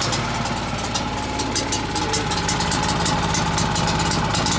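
Champion portable generator's small single-cylinder engine running steadily just after catching on electric start, choke set at 75%.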